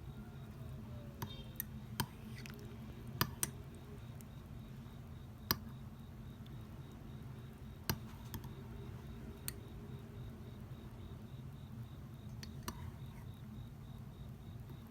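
Sparse sharp clicks and taps of utensils and tableware, about ten of them spread irregularly, over a steady low background rumble. Faint crickets chirp steadily high up, coming in through an open window.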